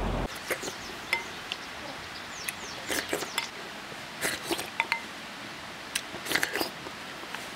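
Someone eating sweet potato starch jelly in a sour-spicy broth: short slurps from a ceramic spoon and the spoon clinking against a ceramic bowl, coming in small clusters every second or two.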